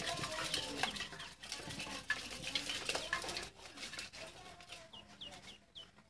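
Ducklings peeping in short, sharp, falling peeps, over a scraping rustle as a plastic toy is pushed across the grain-strewn bottom of a metal basin; the scraping dies away about three and a half seconds in, leaving the peeps.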